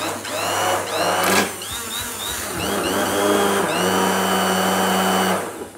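Electric immersion blender running in a saucepan of tomato sauce, puréeing it; the motor's whine rises and falls in pitch as the blade works through the sauce, and it switches off shortly before the end.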